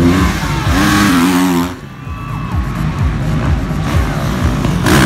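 Motocross bike engines revving hard in two loud bursts as riders hit the jump, one at the start that drops off after under two seconds and another starting near the end. Music with a steady beat plays underneath.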